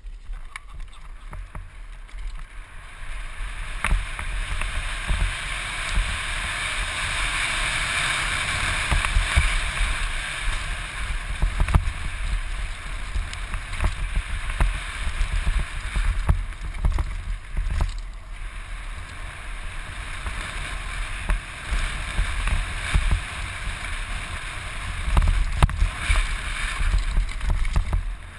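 Downhill mountain bike running fast down a dirt trail: wind rushing and buffeting over the helmet-mounted microphone, with frequent rattles and knocks from the bike over roots and stones. It grows louder about four seconds in as speed builds, and again near the end.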